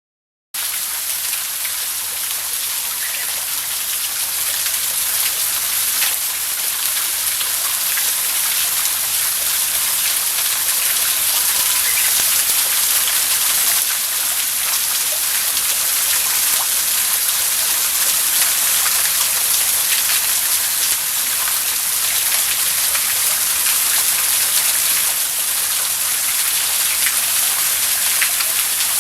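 Waterfall: water falling and splashing in a constant hiss that starts suddenly about half a second in.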